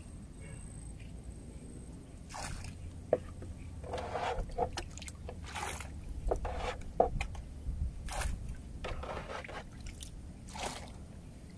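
Bilge water being bailed out of a small boat with a cut-off plastic jug: several separate scoops, the jug scraping along the boat's bottom, and splashes as the water is thrown out.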